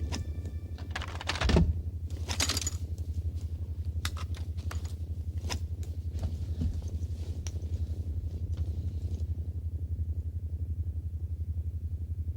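Sound effect of a time machine running: a low, rapidly pulsing hum with scattered clicks and short electronic chirps, the loudest cluster about a second and a half in.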